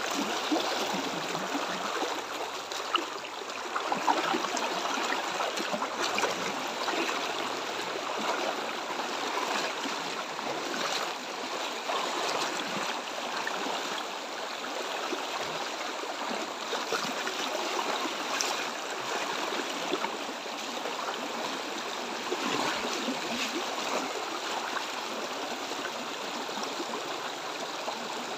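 Shallow, fast river water rushing and burbling steadily over a stony riffle.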